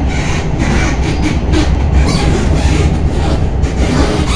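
Tram running along its rails, heard from inside the car: a loud, steady rumble of wheels on track with a deep low hum underneath.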